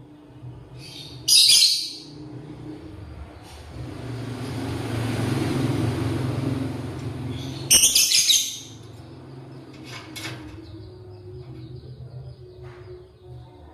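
Lovebirds giving two short bursts of loud, shrill chirping, one about a second in and another about eight seconds in. Between them a broad rushing sound, like a passing vehicle, swells and fades over about four seconds.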